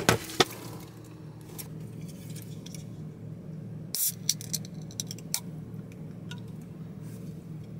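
Steady low hum of a car running, heard inside the cabin, with a few sharp clicks and light rattles of things being handled, the loudest at the start and about four seconds in.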